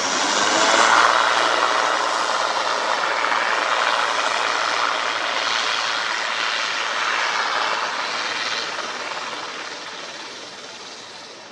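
Airliner engines passing, loudest about a second in and then fading steadily away over the last few seconds.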